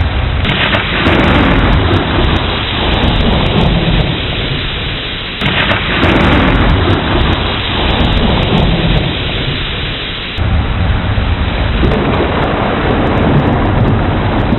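Thunderstorm: steady heavy rain with rolling thunder. New rumbles break in suddenly about half a second in, again near the middle and about two-thirds through, each fading away over several seconds.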